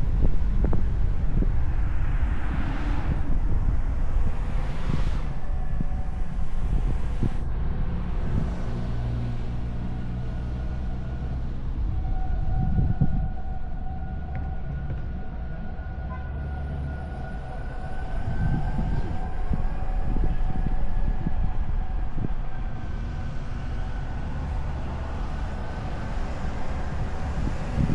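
Car driving on a winding road: engine running, with tyre and wind noise and the engine note changing through the bends. A thin steady whine sits above it through the second half.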